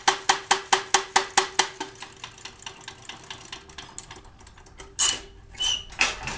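Foley Belsaw handsaw retoother punching new teeth into a saw blade: sharp metallic clicks at about four and a half strokes a second over a steady hum. About two seconds in the strokes grow faint, and they die away by about four seconds. A few louder knocks and clanks follow near the end.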